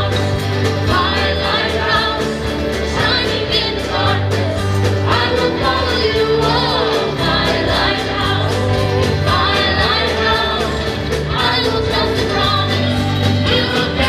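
Live church worship band, with acoustic guitars and drums, accompanying a choir and lead singers in a worship song. The singing is steady throughout over sustained low bass notes.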